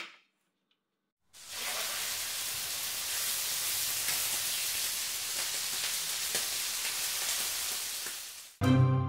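A sharp click, then after about a second of silence a steady sizzle of food frying in a hot pan that lasts about seven seconds and fades out. Music starts just before the end.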